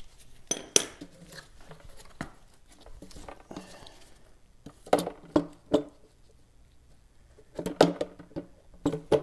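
Scattered knocks and clicks of a hollow plastic washer fluid reservoir being handled, with a metal deep socket working in its pump opening to loosen the pump's plastic nut. The knocks are louder in clusters about five seconds in and again near the end.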